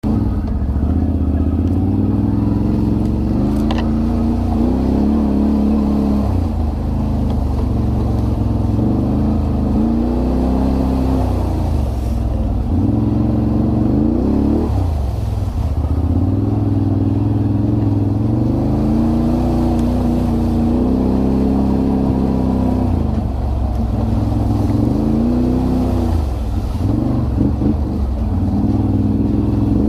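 ATV engine running with the throttle opened and eased again and again, its pitch rising and falling every few seconds.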